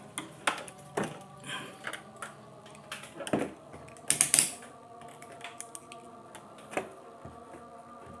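Irregular clicks, taps and rustles of a TV power cord and its plug being handled, with a brief louder scraping hiss about four seconds in.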